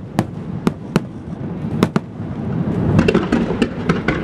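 Aerial firework shells bursting with sharp bangs, one or two a second. About three seconds in they turn into a dense, rapid barrage of many overlapping bangs and crackles.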